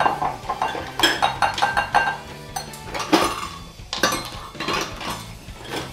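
Metal kitchen utensils clinking and scraping against a frying pan and bowls, a quick run of sharp clinks. The loudest come about one second and three seconds in.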